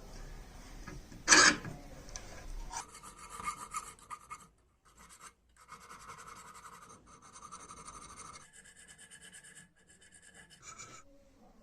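Abrasive rubbing on metal, rasping in long stretches with a few short breaks, after one sharp clatter about a second in.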